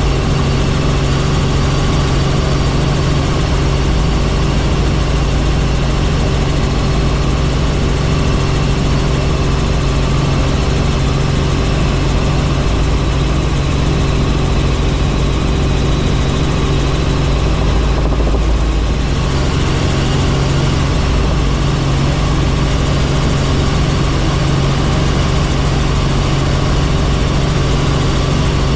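Helicopter in flight: the steady, loud drone of its turbine engine and rotor, a low hum with no change in pitch.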